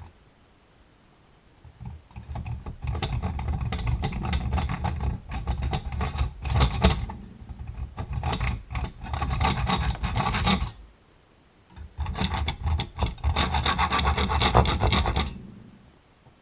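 Hand filing in repeated back-and-forth strokes, in two runs of about nine and three seconds with a short pause between, taking material off a homemade valve stem puller to widen it for a snug fit.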